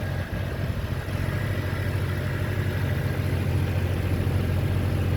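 Toyota Surf engine idling fast and steady at about 1700–1800 rpm instead of its normal 950: a high idle that will not drop, which the mechanic later traces to two wires swapped on a connector.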